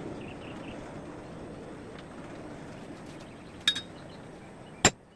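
Two sharp metallic hammer blows on a punch about a second apart, the second louder and the first with a brief ring, punching a hole through a hot nail.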